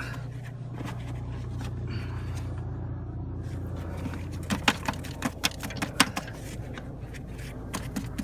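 Hand work on a coolant hose and its broken plastic fitting: scraping, then a run of sharp clicks and taps from about four and a half seconds in, over a steady low hum.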